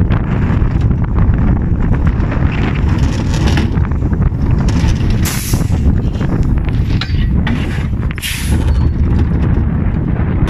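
Mine train roller coaster car running along its steel track, its wheels giving a steady heavy rumble with wind on the microphone. Two short hisses come through, about five and eight seconds in.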